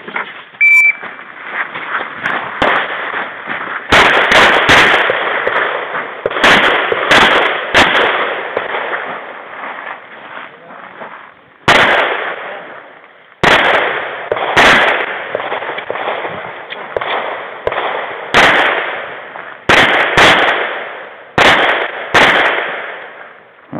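An electronic shot timer gives a short start beep about a second in, then a semi-automatic pistol fires a string of shots in quick groups, each loud crack followed by a ringing echo. Longer pauses separate the groups.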